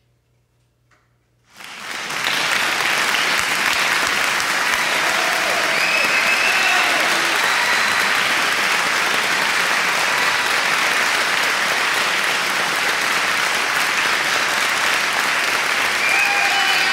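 Audience applauding, starting suddenly about a second and a half in and then holding dense and steady.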